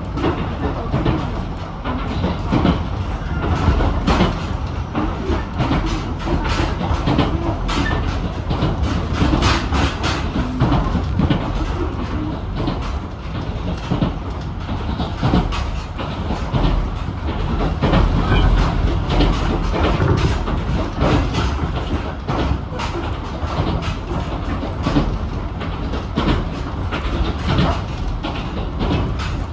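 Ichibata Electric Railway 7000 series electric railcar running at speed, heard from inside the cabin: a steady rumble of wheels on rail with frequent clicks from the rail joints.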